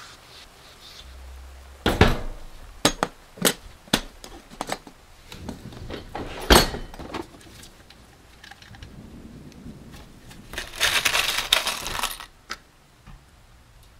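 Latches and lid of a Husky plastic organizer case snapping open in a series of sharp clicks and knocks. About eleven seconds in, a gloved hand rummages through a bin of loose metal pop rivets, a jingling clatter for about a second and a half.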